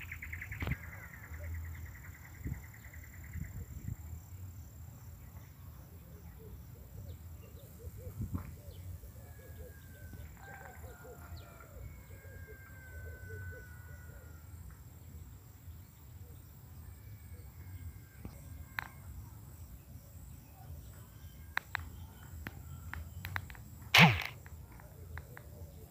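Rural outdoor ambience with birds calling: a rapid buzzing trill fades out a few seconds in, and a few thin drawn-out gliding calls come around the middle, over a steady low rumble. A single sharp knock near the end is the loudest sound.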